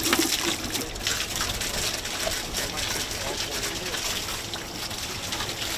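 Water running steadily from a hose, a continuous hissing rush.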